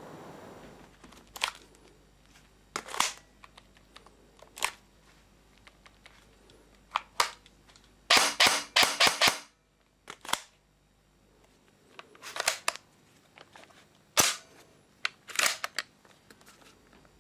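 ASG CZ Scorpion EVO 3 A1 electric airsoft gun shooting in sharp cracks, single and in short strings, with a quick run of several cracks about eight seconds in.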